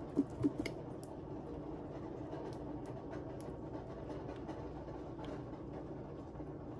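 A squeeze bottle of Sweet Baby Ray's barbecue sauce being handled and squeezed out in lines over a pan of ribs: two soft knocks in the first half second, then faint scattered ticks. A steady low hum runs underneath.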